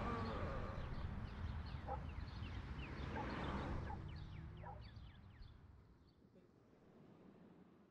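Birds chirping in many short, quick, falling calls over a steady low outdoor rumble; the whole ambience fades out over the second half.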